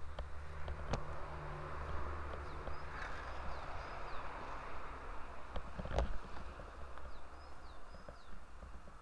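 Footsteps on dry ground with low handling and wind rumble on a handheld camera, and a small bird giving short falling chirps a few times in the background. One sharper knock about six seconds in.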